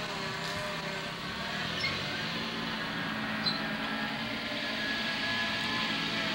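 Small tractor's engine running steadily, with a few faint ticks and rattles.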